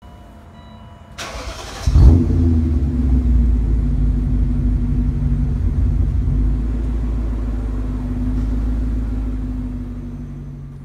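BMW E39 M5's 4.9-litre V8 starting: a brief crank about a second in, catching with a loud flare at about two seconds, then running at a steady idle that fades out near the end.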